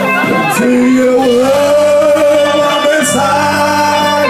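Live worship band and singers performing a song. A voice holds one long note over steady sustained chords.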